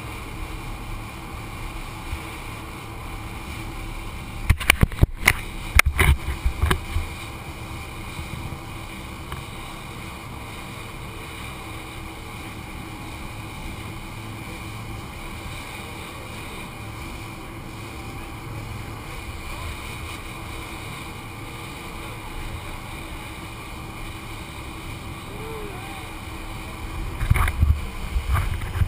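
Rigid inflatable boat running at speed, its engine and the rush of water and wind heard through a waterproof camera housing. Clusters of loud thumps come about four to seven seconds in and again near the end, as the hull slams into waves.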